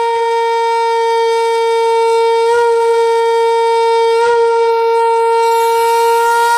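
Conch shell (shankh) blown in one long, steady, loud blast on a single note, wavering slightly twice along the way.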